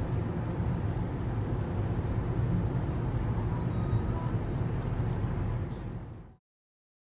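Steady low rumbling noise that fades out about six seconds in, followed by silence.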